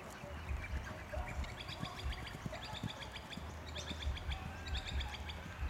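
Birds chirping in quick runs of short, repeated high notes, over a low rumble with soft, irregular thuds of a trotting pony's hooves on turf.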